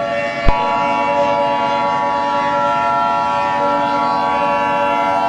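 A sustained, horn-like chord of several steady tones held without a break. A sharp click comes about half a second in, and after it the chord fills out with more tones.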